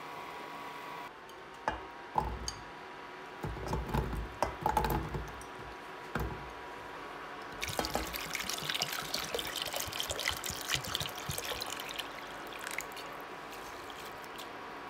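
Several separate knocks and thumps, then water poured from a glass bottle into a red enamelled pot of peeled potatoes, splashing steadily for about five seconds before it stops.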